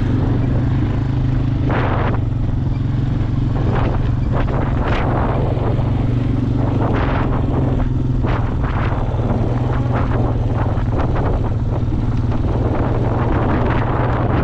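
An engine running steadily at a fixed low pitch, with short bursts of hiss over it.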